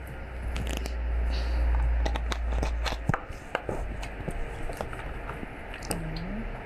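Items in an open refrigerator being handled: a scatter of light clicks, knocks and rattles. A low rumble runs under the first three seconds and then stops.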